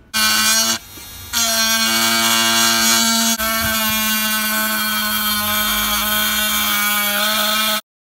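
Small rotary tool with a thin cut-off disc running at high speed, cutting a square opening in a panel: a steady, loud motor whine with a strong hum and overtones. It drops away briefly about a second in, then cuts off abruptly near the end.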